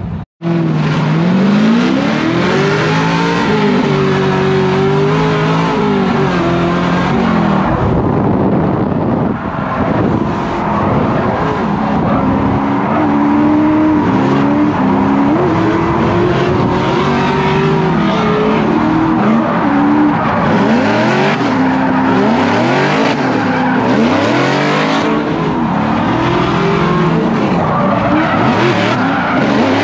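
Drift car's engine revving hard from inside the cabin, its pitch climbing and dropping again and again as the throttle is worked through the drift, with tyres screeching and a steady rush of tyre and wind noise. The revs swing fastest in quick ups and downs about two-thirds of the way through.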